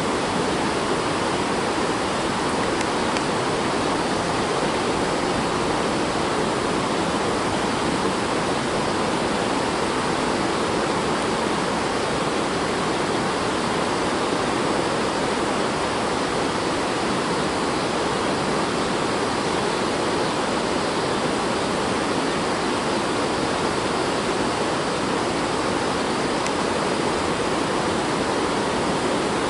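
A steady, unchanging rushing hiss.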